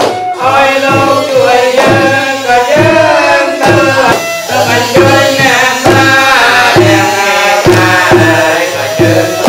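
Traditional Khmer wedding music: a sliding vocal or melodic line over steady hand-drum strokes.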